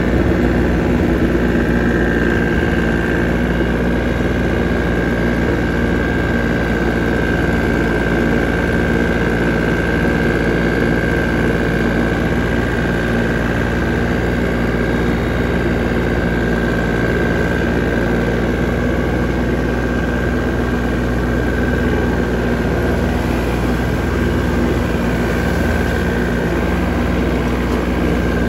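John Deere 770 compact tractor's three-cylinder diesel running steadily under load while mowing in second gear high range, driving a 6-foot King Kutter PTO finish mower, with a steady high whine over the engine.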